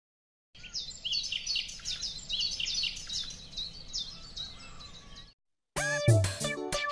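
Many birds chirping, quick short high chirps over a faint background hiss, starting about half a second in and cutting off suddenly after about five seconds. Near the end, dance music with a heavy bass beat starts.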